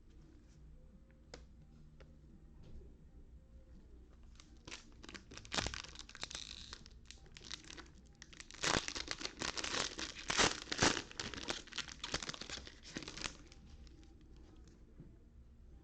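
Plastic wrappers of trading card packs being torn open and crinkled, in bursts of crackling, the busiest stretch in the middle.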